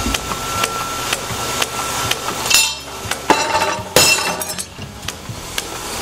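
Drop hammer stamping bronze buckle pieces in a die. There is a ringing metal clank about two and a half seconds in, then two sharp blows less than a second apart, each ringing like struck metal.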